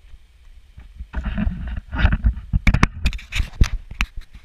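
Close handling noise from the camera being adjusted and set in place: scraping with a string of sharp clicks and knocks, starting about a second in and stopping suddenly at the end.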